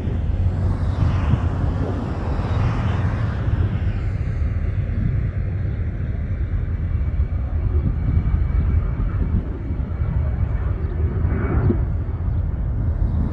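Airbus A320-214's CFM56 turbofan engines at takeoff power as the airliner climbs away after lift-off: a steady low rumble with a hiss on top that dims after about four seconds as the plane draws off.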